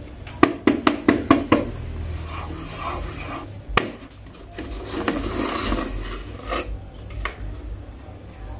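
A marker tapping sharply on a paper sheet about six times in quick succession, and once more a couple of seconds later. Then paper crinkles and tears as a hand pushes through it.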